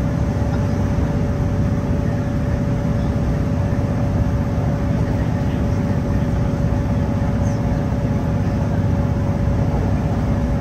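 Inside a Great Western Railway Class 165 diesel multiple unit running at speed: a steady low rumble of engine, wheels and track, with a constant whine over it.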